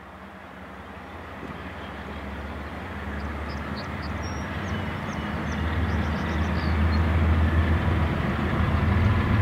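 Diesel locomotives of an approaching freight train, their engines rumbling low and growing steadily louder as the train draws nearer.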